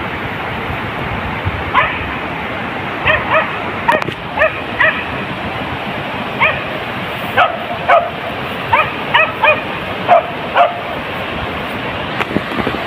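Beagle hound yelping: a dozen or so short, high yelps in irregular bursts, the hunting cry of a beagle working the rice paddies for mongoose, over a steady rushing noise.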